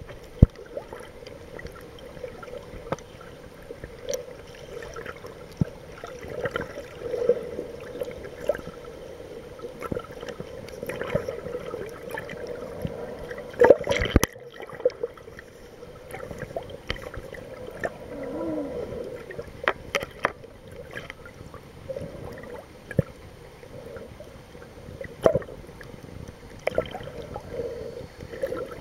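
Underwater sound as heard by a camera held under the sea: a muffled, steady wash of water with frequent small clicks and knocks, the loudest about fourteen seconds in.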